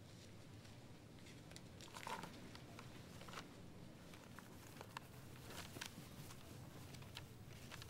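Quiet room tone with faint, scattered rustles of paper pages being handled and turned. The most distinct rustle comes about two seconds in.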